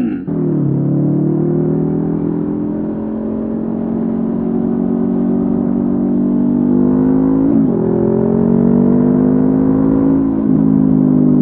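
Honda CB500F's parallel-twin engine running through a Mivv GP Pro slip-on exhaust while riding, its pitch sagging slowly and then climbing. There is a quick dip and return in pitch about seven and a half seconds in, and a smaller step about ten and a half seconds in.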